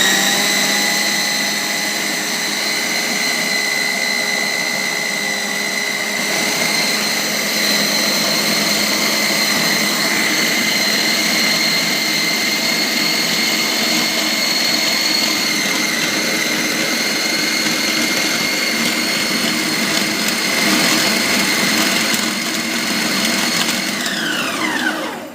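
Philips HL7707 750-watt mixer grinder running steadily with a high whine while kneading chapathi atta into dough. Near the end it is switched off and the whine falls away as the motor spins down.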